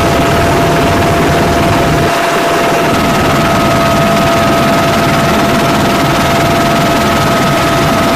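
Helicopter in flight heard from on board: loud, steady rotor and turbine noise with a low pulsing rumble and a steady high whine at two pitches.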